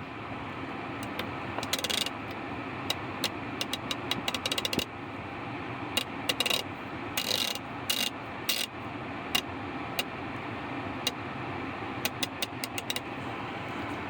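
Freshly rebuilt 1/2-inch drive ratchet clicking as it is worked back and forth, in short runs of rapid clicks and single clicks, over steady background noise. The clicking is the pawl, which had broken and was replaced with a rebuild kit.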